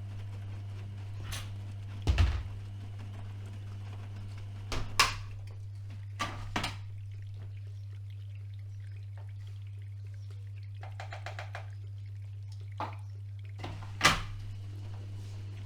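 AEG Öko-Lavamat 76730 front-loading washing machine mid-cycle: a steady low hum with irregular thuds and knocks as the drum turns the laundry, and a brief rattle about eleven seconds in.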